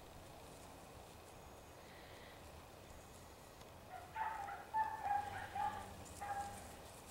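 An animal calling: a quick run of five or six short, high yelping notes, starting about four seconds in and lasting some two seconds, over a faint steady outdoor background.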